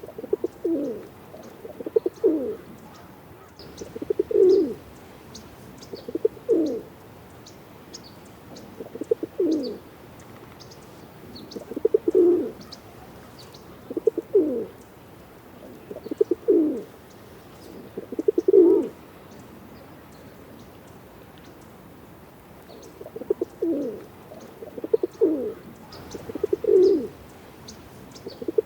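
Pigeon cooing: low calls repeated roughly every two seconds, with a pause of a few seconds partway through, and faint high chirps in the background.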